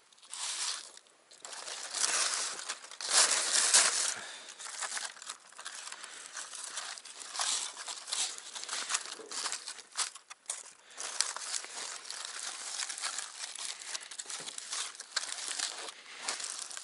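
Aluminium foil crinkling and crackling irregularly as hands fold and press it around a whole fish. It is loudest about three to four seconds in.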